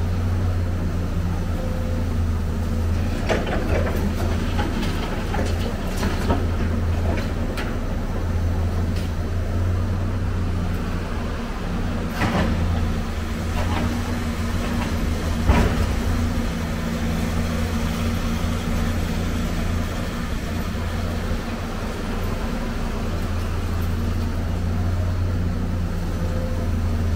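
Excavator's diesel engine running with a steady low drone that swells and eases as it works. Scattered metallic clanks and knocks come over it, the sharpest about twelve and fifteen seconds in, as scrap metal is shifted in a dump truck bed.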